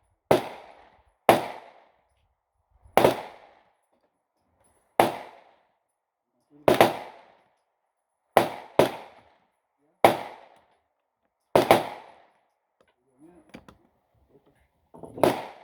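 Gunshots, about ten, fired one at a time at uneven gaps of roughly one to two seconds, each a sharp crack with a short echoing tail.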